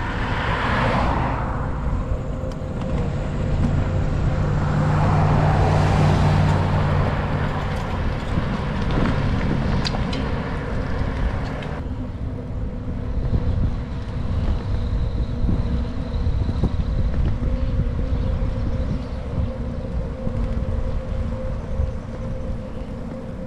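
Cars overtaking on the road, each with a tyre hiss that swells and fades. The second one passes about 3 to 8 seconds in with a steady engine hum. After that comes a steady low rumble of road and riding noise.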